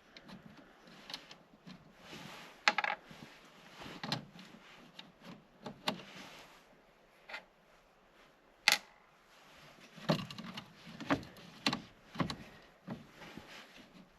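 Scattered small clicks, taps and light rattles of hand-handled parts and tools during wiring work on a winch switch box, irregular and unhurried, the sharpest click about two-thirds of the way through.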